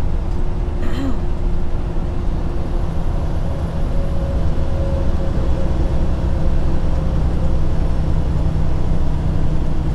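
Semi-truck diesel engine pulling hard under a heavy trailer load up a steep grade, heard from inside the cab as a steady deep drone. There is a brief click about a second in.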